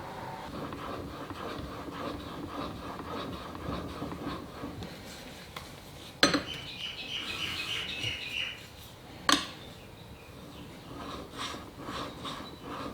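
Steel parts of a hand plane being handled: faint rubbing and fiddling, with two sharp metallic clinks about three seconds apart, the first ringing on briefly like struck steel.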